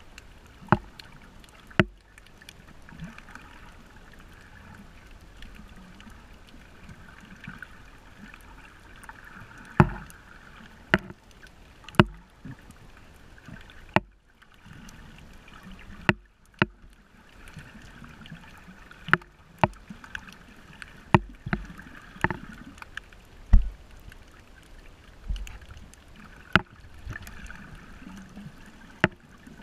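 Muffled underwater sound of snorkeling, picked up by a submerged camera: a steady watery hiss broken by sharp clicks and knocks every second or two.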